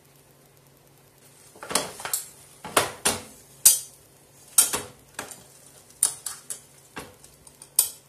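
Metal cookware and utensils clinking and knocking: a dozen or so sharp, separate strikes, starting about a second and a half in.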